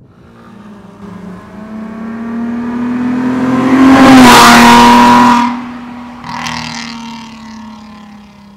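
Mercedes-Benz W212 E350 V6 with a Fi Exhaust valvetronic aftermarket exhaust driving past under acceleration. The exhaust note builds to its loudest about four to five seconds in as the car passes, drops away suddenly, swells briefly once more, then fades.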